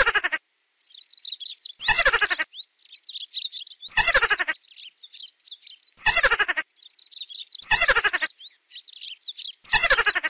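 A small rodent's squeaky call, a short squeal that falls in pitch, repeated about every two seconds, over continuous high birdsong chirping.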